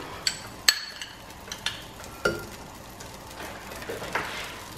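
Butter sizzling faintly as it melts in a nonstick pan, while a utensil clicks and scrapes against the pan, pushing the butter around, with about five sharp taps in the first couple of seconds.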